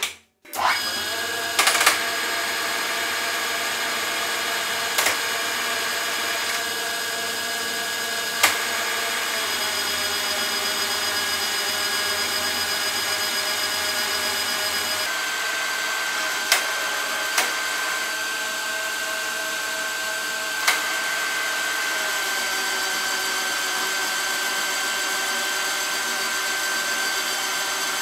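Metal lathe starting up about half a second in and then running steadily with a whine from its drive, turning a copper bar; a few sharp ticks break in now and then.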